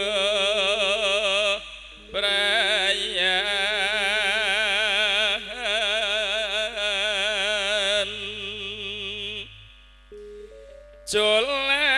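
A man singing a Javanese verse solo, with strong vibrato on long held, ornamented notes. He breaks off briefly about two seconds in, stops again for about a second and a half near the end, then starts the next phrase.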